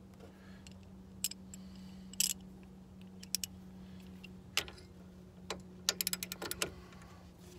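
Hand tools working a nut on a car's ball joint: scattered metallic clicks and clinks, then a quick run of ratchet clicks about six seconds in. A steady low hum runs underneath.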